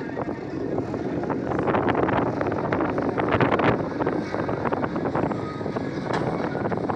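Heavy diesel machinery running, with a steady engine noise and a dense patter of rattles and knocks that is loudest in the middle.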